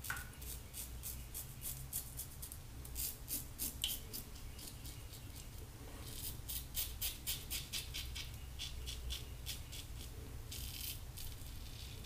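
Fine Accoutrements "Marvel" double-edge safety razor scraping through lathered stubble on the chin and jaw: quick runs of faint, crisp scratches in several clusters, one per short stroke of the blade.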